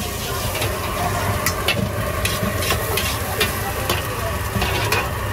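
A metal ladle scraping and clanking against an iron wok as shredded vegetables and fried chicken pieces are stir-fried, sizzling steadily. The clanks come irregularly, about once or twice a second, over a low steady rumble.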